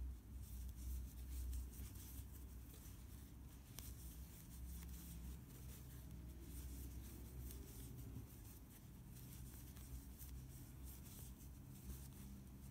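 Faint rubbing and rustling of hands handling a crocheted yarn mask, over a steady low hum.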